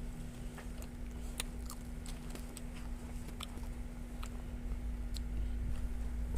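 Popcorn kernels popping: a dozen or so sharp, irregular pops over a steady hum.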